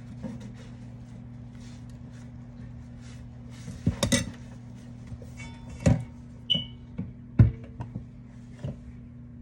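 Dishes and utensils being handled and clattering. The first four seconds hold only a steady low hum; from about four seconds in comes a string of sharp knocks and clinks, one of which rings briefly.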